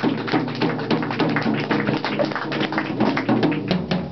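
Small audience clapping, many sharp claps, with background music playing underneath.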